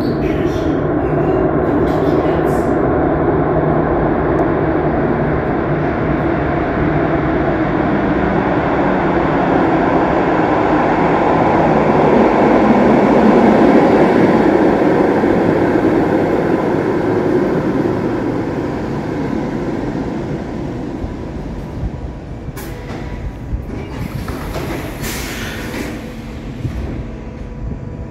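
Cologne Stadtbahn light-rail train, a red-and-white Stadtbahnwagen B, pulling into an underground station. Its rumble and wheel noise build to their loudest as it runs along the platform, then fade as it slows to a stop, with a few short sharp sounds near the end.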